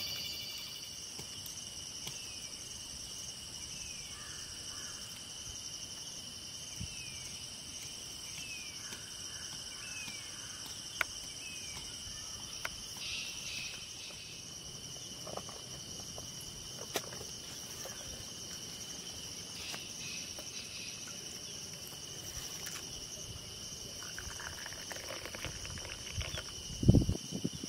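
Steady high-pitched insect chorus, crickets, with a few short falling chirps early and scattered light clicks. Near the end, tea is poured from a steel kettle into a clay cup, followed by a brief low knock, the loudest sound.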